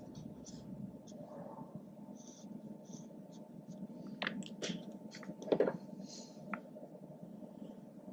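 Felt-tip marker dragged across paper in short shading strokes, a squeaky scratching repeated many times, with a few sharper taps around the middle, the loudest a little past halfway, over a low room hum.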